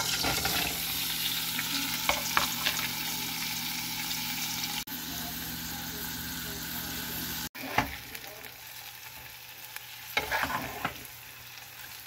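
Sliced onions and red chili peppers sizzling as they fry in a pan, with a metal spoon knocking and scraping against the pan as they are stirred. The sizzle drops off noticeably after about seven and a half seconds.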